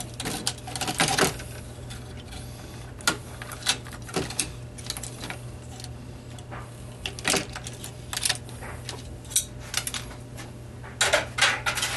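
Scattered clicks and light clatter of a circuit board and small metal parts being handled and set down inside an opened iMac's metal chassis, with a steady low hum underneath.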